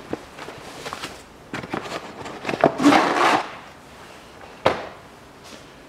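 Handling of a car's engine air filter at its plastic airbox: light clicks and knocks of plastic, with a longer rustle of the filter and its paper wrapping about halfway through.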